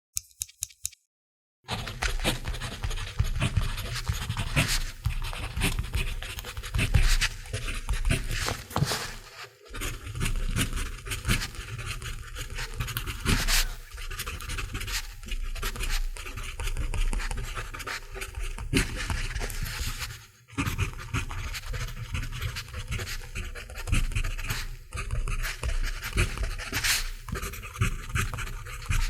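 Mechanical pencil writing on paper: a continuous scratchy stroking of the lead with fine clicks, pausing briefly twice. A few short clicks come just before the writing begins.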